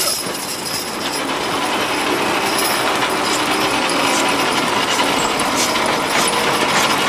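A team of draft horses dragging a loaded, truck-mounted pulling sled over a dirt track: a loud, steady scraping rumble that builds over the first couple of seconds, with scattered sharp clicks.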